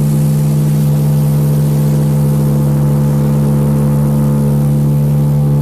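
A ship's whistle blowing one long, steady, deep blast, two low tones sounding together as a chord.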